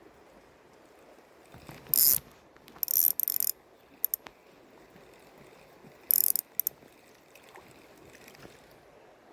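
Fishing reel ratcheting in short bursts: once about two seconds in, again about a second later, and again near the six-second mark, with a few single clicks between.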